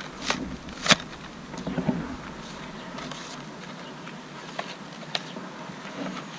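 Plastic blister packaging of a toy set being handled and pried open by hand: scattered clicks and crackles of plastic, the loudest about a second in.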